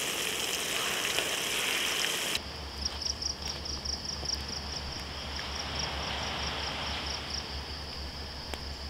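A steady rushing noise for about two and a half seconds, then a sudden cut to insects chirping in a fast, regular pulse, several chirps a second, over a low pulsing hum.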